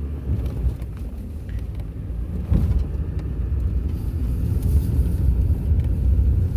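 Road and engine rumble of a vehicle being driven, heard from inside the cabin, growing gradually louder as it goes, with a single knock about two and a half seconds in.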